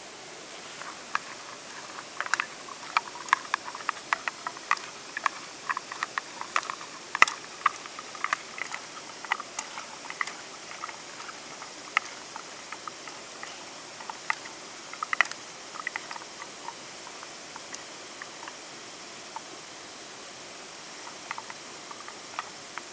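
Edamame pods tossed and stirred by hand in a small metal camping pan: a quick run of light clicks and taps against the metal that thins out after about a dozen seconds and stops near the end. A steady river rush runs underneath.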